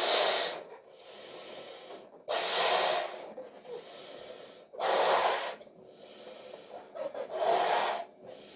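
A person blowing up a latex balloon by mouth: four loud breaths about two and a half seconds apart, with quieter blowing between them as the balloon fills.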